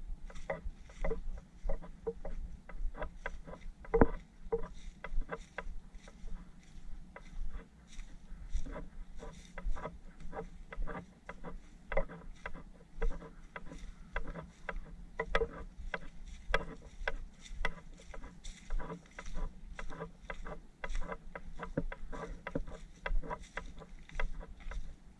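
Footsteps on a path of dry fallen leaves, about two steps a second, each one a short rustling crunch, with one louder step about four seconds in.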